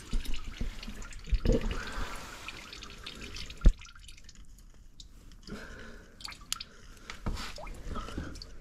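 Scattered small clicks and taps as a metal pick works inside the engine block's coolant port, fishing out a broken piece of the plastic coolant pipe. One sharper click stands out a little over three and a half seconds in.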